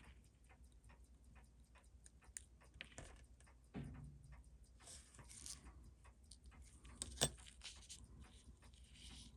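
Faint, irregular small clicks and taps of metal watchmaking tools and tiny watch parts being handled during a watch service, with one sharper click about seven seconds in.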